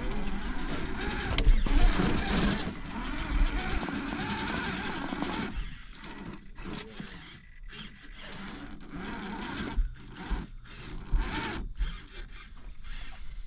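Radio-controlled scale rock crawler climbing a rock ledge: its small electric motor and gears whirring while the tyres scrape and knock against the stone. Louder for the first few seconds, then quieter with scattered sharp clicks and knocks.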